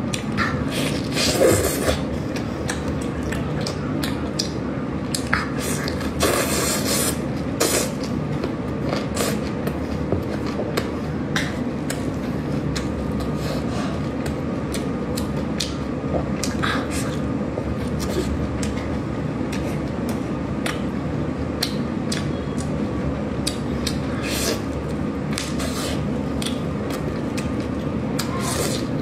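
Close-up eating sounds of braised chicken legs being pulled apart and chewed: wet mouth sounds with scattered short crackles and smacks. A steady background noise runs underneath.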